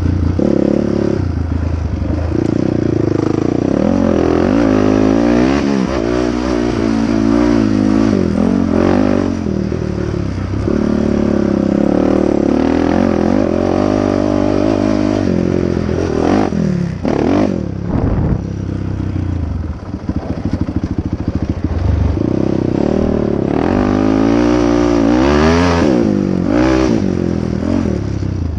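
Honda TRX450R quad's single-cylinder four-stroke engine being ridden hard, revving up and falling back again and again with the throttle and gear changes. Its pitch jumps sharply and drops about two-thirds through, and it settles to a low, pulsing run for a few seconds afterwards and again at the very end.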